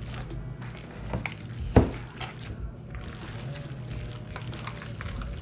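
Hands squishing and kneading a wet raw ground-beef meatloaf mixture in a glass bowl, with scattered small clicks and one louder knock about two seconds in.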